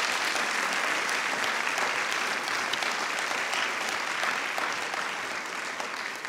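A large audience applauding steadily, with dense, even clapping that begins to thin out near the end.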